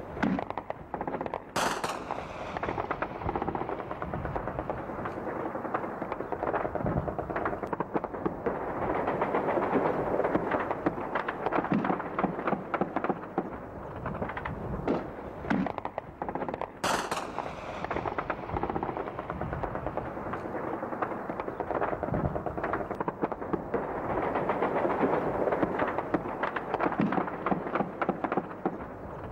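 Sustained automatic gunfire: rapid machine-gun bursts and single shots overlapping without a break. Two sharper cracks stand out, about two seconds in and about seventeen seconds in.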